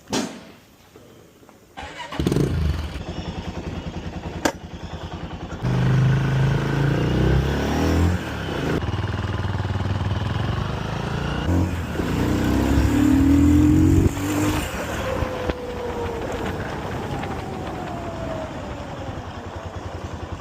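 Motorcycle engine starting about two seconds in, revved twice, then dropping back to a steady idle.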